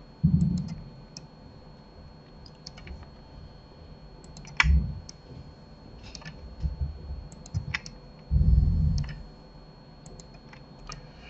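Computer keyboard keys and mouse buttons clicking now and then, with three louder low muffled thumps: one just after the start, one about halfway and a longer one about three quarters of the way through.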